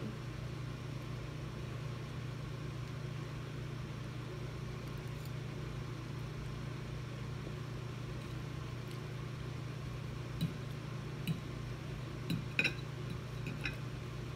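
A steady low hum, with a few light clinks of a metal fork against a plate starting about ten seconds in.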